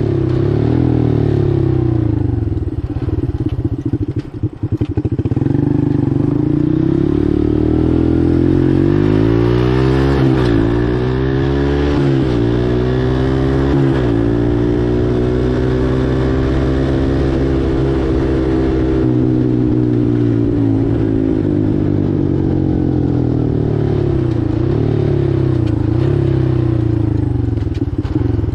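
Four-wheeler (ATV) engine running under way, its pitch rising and falling several times as the throttle is worked, with a steadier stretch in the middle. A brief drop in level about four seconds in.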